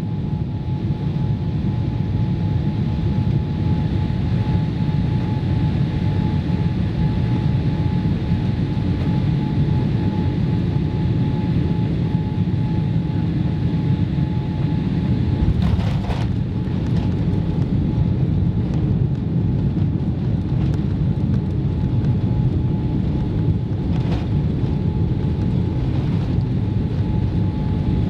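Boeing 787-8 airliner on descent, heard as a steady low rumble of engines and airflow with a thin steady tone over it. Brief sharp clunks come about halfway through and again near the end.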